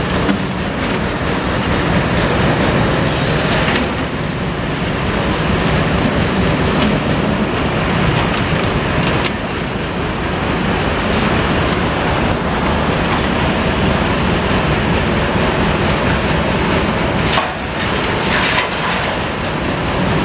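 Tracked hydraulic excavators working a demolition site: a continuous engine rumble mixed with rattling and clattering from the machines and rubble.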